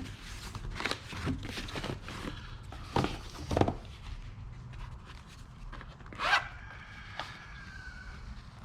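Packaging and box contents being handled and rummaged through: a run of short rustles and scrapes, the loudest about three seconds in, and a sharp squeak a little past six seconds with a faint tone trailing off after it.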